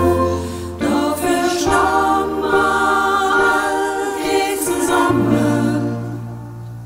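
Women's choir singing held chords in several-part harmony. A low steady bass note sounds beneath from about five seconds in, and the singing fades off near the end.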